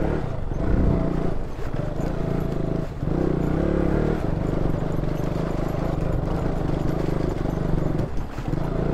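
KTM Duke 200's single-cylinder engine running at low revs while the bike rides over a rough stony track. The engine note dips briefly a few times, and knocks and rattles from the bike bouncing over the stones come through.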